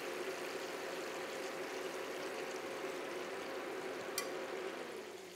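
The cooling fan of a tabletop induction hob runs on with a steady hum and hiss after the heat is switched off, fading out near the end. A light metallic clink of tongs against the plate comes about four seconds in.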